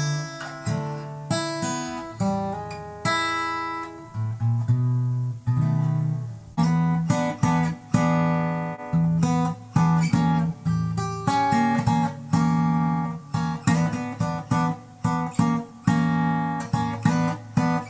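Acoustic guitar playing a Delta blues piece: separately plucked notes ringing and decaying over a steady bass line, with no singing.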